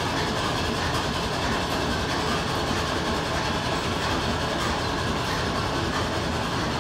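Belt-driven overhead line-shaft machinery in a railroad machine shop running with a steady mechanical rattle.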